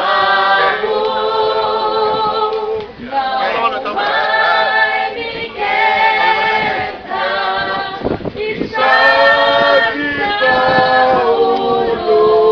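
A group of voices singing a slow song in long held notes, phrase after phrase with brief breaks between.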